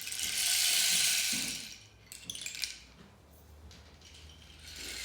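Rain sound effect improvised with household objects: a hissing rush swells and fades over about two seconds, a few clicks and rattles follow, and a second rush builds near the end.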